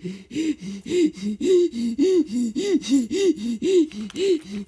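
A person's voice making quick, breathy panting huffs, about three or four a second, alternating between a higher and a lower pitch: the sound of plush toy characters running a chase.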